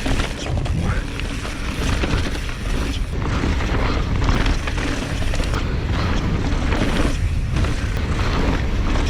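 Wind buffeting a chin-mounted GoPro's microphone at riding speed on a mountain-bike descent, a loud low rumble, with knocks and rattles from the bike running over the trail.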